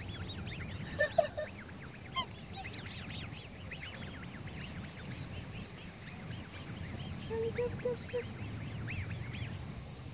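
Black swan cygnets peeping: many short, high chirps that rise and fall, several a second. A few short, lower calls come about a second in and again past the middle.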